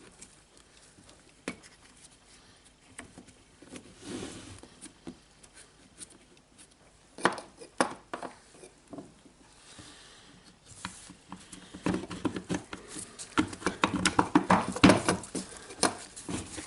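Scattered clicks and knocks of a rotary hammer's plastic and metal parts being handled and fitted together by hand, building to a quick, dense run of clicks and knocks over the last few seconds.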